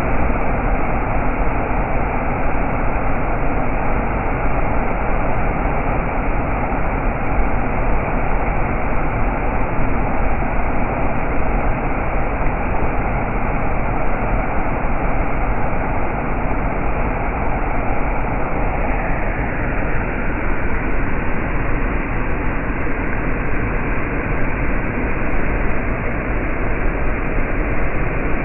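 Rushing river water, a loud, steady, unbroken rush.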